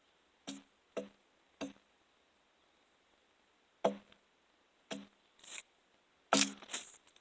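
An axe chopping bark off the side of a log. The blows come irregularly, each sharp with a short ringing note: three quick blows at the start, a pause of about two seconds, then more, coming faster near the end. A brief scrape of loosened bark is heard among them.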